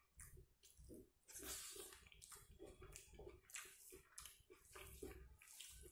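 Faint, wet chewing of a mouthful of food, a string of short irregular clicks and smacks, with soft squishing as bare fingers work rice and curry on the plate.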